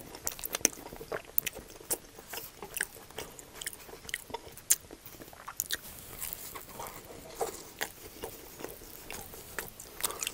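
Close-miked chewing and biting of a steak and cheese quesadilla: irregular wet mouth clicks and smacks, with a bite into the crisp toasted tortilla partway through.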